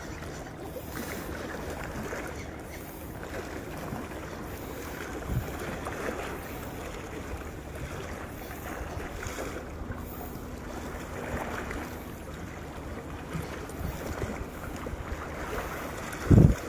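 Steady wash of sea waves, with wind buffeting the microphone. A loud low thump sounds near the end.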